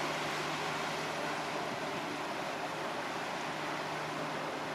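Steady outdoor noise of wind and city bustle with a faint low steady hum underneath.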